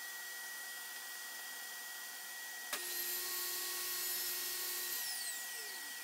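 Table saw switched on with a click nearly three seconds in. Its motor runs at a steady high whine for about two seconds, then it is switched off and winds down in falling pitch. Before it starts there is only a faint steady hiss.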